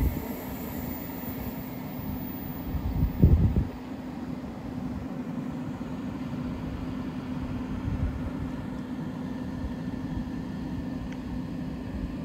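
Freight train rumbling away into the distance after passing through, leaving a steady low hum. A brief, loud low rumble comes about three seconds in.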